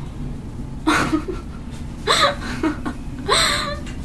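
A woman laughing in three short, high-pitched bursts about a second apart, set off by her bare foot being tickled on the sole.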